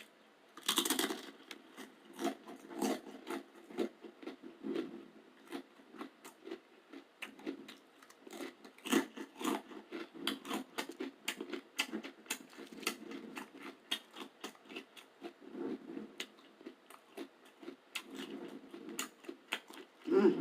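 A person chewing gluten-free roasted garlic crackers close to the microphone: irregular crisp crunches, heaviest about a second in and again around nine seconds in.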